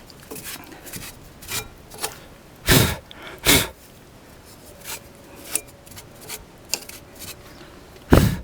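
Cleaning brake dust off a car's front brake caliper and pad mount: light rubbing and small clicks, with three short, loud noisy bursts, two close together about three seconds in and one near the end.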